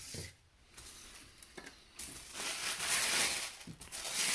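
Paper wrapping and packaging rustling and crinkling as a boxed model is unwrapped by hand, a few faint clicks first, then a loud continuous rustle from about halfway through.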